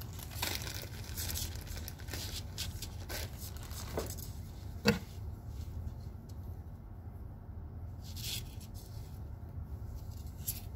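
Rustling and scuffing of close handling, with a few sharp clicks, the loudest about five seconds in, over a steady low hum.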